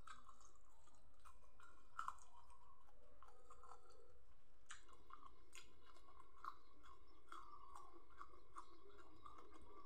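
A person chewing close to the microphone: a steady run of small wet smacks and crunches of raw bean flowers and rice, the sharpest pair of crunches about two seconds in.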